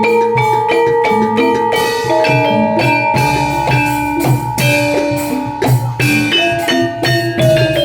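Javanese gamelan accompaniment for jaranan (kuda lumping) playing: struck metallophone notes in a quick, steady repeating melody over drum strokes.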